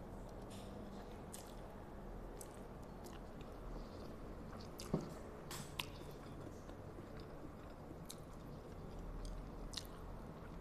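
Close-miked chewing of a mouthful of spicy instant noodles: soft, wet mouth clicks every second or so, with a sharper click about five seconds in.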